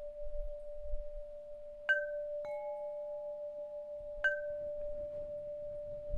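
Bell-like chimes: a steady, slightly wavering ringing tone held throughout, with three sharp strikes of two different pitches about one to two seconds apart, each ringing out briefly.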